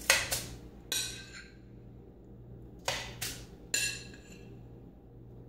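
A handful of short knocks and clinks of kitchenware being handled and set down on a counter, spaced irregularly about a second apart.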